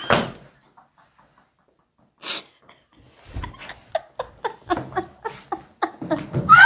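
Young women's breathy, wheezing laughter after a near-silent pause: a sharp breath about two seconds in, then quick gasping laughs that grow louder and faster toward the end.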